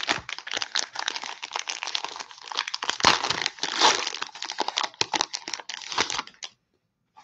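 Plastic wrapper of a Donruss basketball cello pack crinkling and tearing as the pack is pulled from the box and ripped open by hand. It stops shortly before the end.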